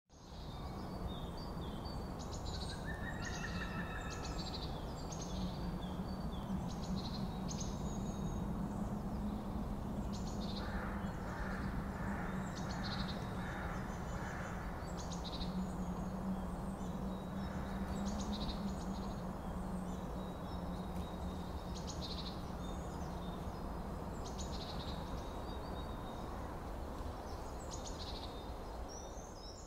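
Birds chirping and calling again and again over a steady noisy background with a low hum, with a run of evenly repeated calls near the middle.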